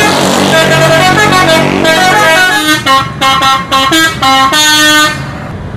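Bus multi-tone musical air horn (telolet horn) playing a quick tune of stepped notes, the notes growing short and choppy about halfway through, then cutting off near the end.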